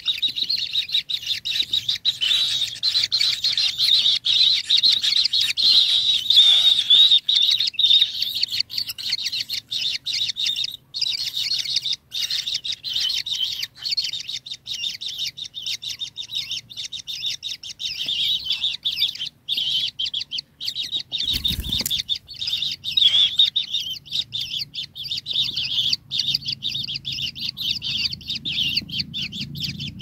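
Kingfisher nestlings calling in a rapid, continuous high chitter of begging calls. A single brief thump comes a little past two-thirds of the way through, and a low rumble builds near the end.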